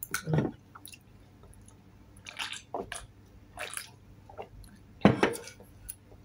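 Drinking from an opened soft-drink can: short wet sips and swallows, with two brief slurps about two and a half and three and a half seconds in, and a louder knock or breath about five seconds in.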